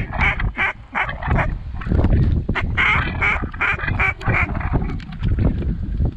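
Rapid runs of duck quacks, the longest from about two and a half to four and a half seconds in, over wind rumbling on the microphone.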